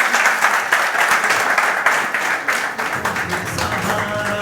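Applause, a dense crackle of many hands clapping. Music comes in underneath about three seconds in.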